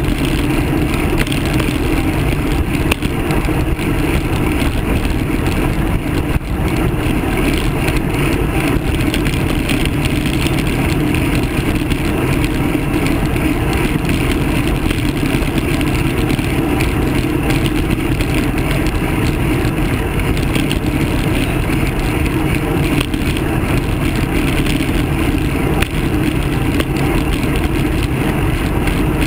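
Steady rush of wind buffeting a handlebar-mounted camera's microphone, mixed with road and tyre noise from a bicycle riding along at speed.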